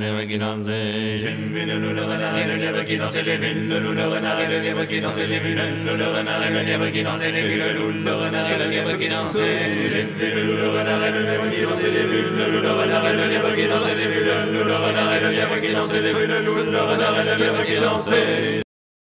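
A group of voices singing in chant style, moving from unison, all voices on the same melody, to polyphony, with voices on different notes. The singing cuts off abruptly near the end.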